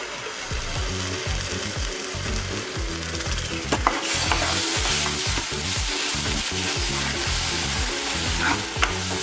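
Ground masala paste hitting hot butter and spices in a nonstick kadai and being stirred with a metal spatula: a steady sizzle that grows stronger about four seconds in, with a few sharp clicks of the spatula.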